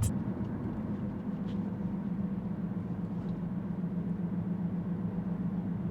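Steady low hum of a running vehicle over a faint even rumble, with a few light ticks.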